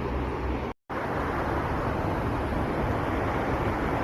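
Steady rushing noise of a river flowing over rocks, broken by a brief dropout just under a second in.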